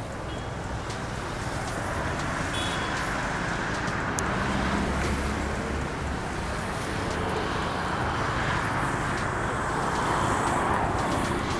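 Street traffic noise: vehicle engines and road rumble, with one engine loudest a few seconds in.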